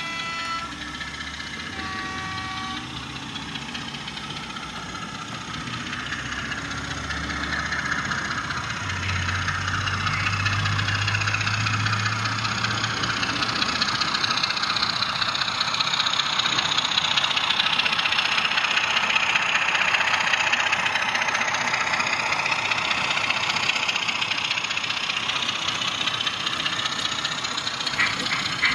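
Model diesel locomotive running along the layout track with a steady engine sound that grows louder as it comes close, peaking as it passes. Two short tones sound in the first couple of seconds.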